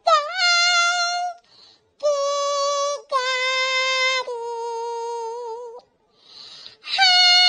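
A high-pitched, artificially sped-up or pitch-shifted voice singing long drawn-out notes that step downward in pitch, with short breaks between the phrases.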